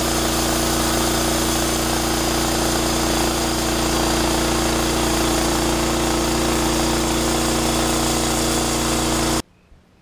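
Norwood LM29 portable band sawmill running steadily, its gasoline engine driving the band blade through a log as the saw head is pushed along the track. The sound cuts off suddenly near the end.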